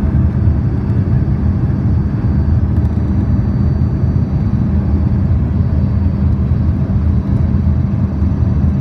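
Cabin noise inside an Embraer 145 regional jet: a steady deep rumble of its rear-mounted Rolls-Royce AE 3007 turbofans and rushing air, with faint steady high tones above it.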